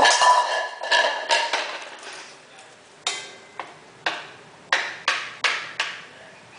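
Wooden spoon knocking and scraping in a small nonstick frying pan, a child's play-cooking. A quick run of clanks with the pan ringing comes in the first second and a half, then after a pause about seven single knocks roughly half a second apart.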